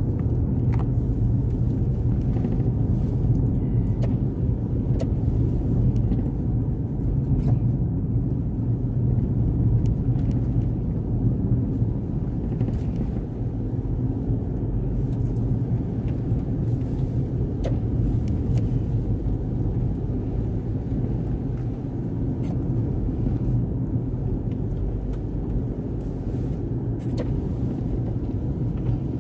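Steady low rumble of a car driving on a wet road, engine and tyre noise heard from inside the cabin, with a few faint clicks scattered through it.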